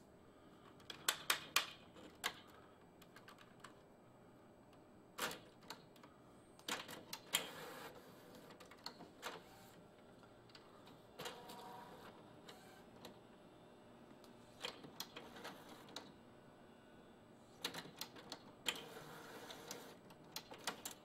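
Epson Artisan 700 inkjet printer's mechanism clicking and clacking in short bursts of rapid clicks every few seconds, with brief motor whirs between. Near the end its front tray swings open.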